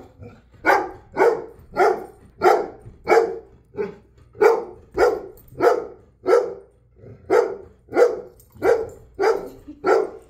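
A dog barking over and over in a steady rhythm, nearly two barks a second, excited barking at play.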